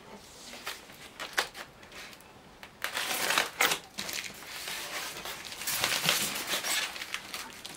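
Packaging being handled: a polystyrene foam block scraping and rubbing against a cardboard shipping box as it is lifted out, with cardboard rustling. A few light knocks at first, then irregular bursts of scraping and rustling from about three seconds in.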